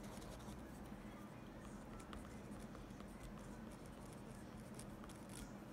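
Click pen writing on grid paper: the pen tip makes faint, light scratches and small ticks as a word is handwritten, over a low steady hum.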